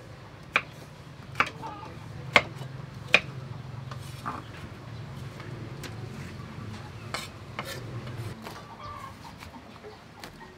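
A kitchen knife chopping wax gourd on a wooden chopping board: four sharp knocks in the first three seconds or so, then lighter knocks and scraping as the cut pieces are pushed into a steel colander. A low steady hum runs underneath and stops about two seconds before the end.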